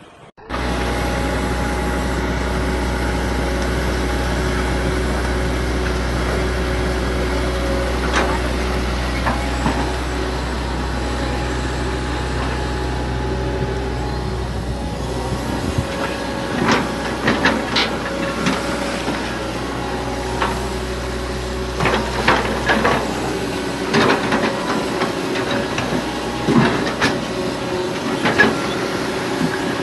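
A heavy machine's engine running steadily, with scattered knocks and clanks in the second half.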